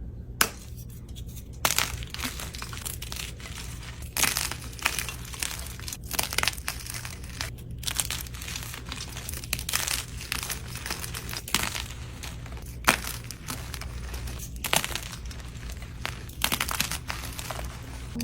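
Dyed gym chalk being crushed, crumbling and crunching in dense, irregular crackles with sharper snaps every second or two, over a steady low hum.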